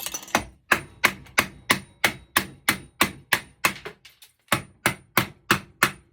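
A hammer repeatedly striking a copper-and-aluminum heat sink, about three blows a second with a brief pause about four seconds in, knocking the aluminum away from the copper to separate the metals.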